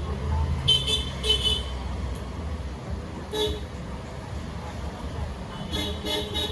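Vehicle horns tooting in several short blasts, a pair about a second in, one in the middle and a cluster near the end, over a low traffic rumble.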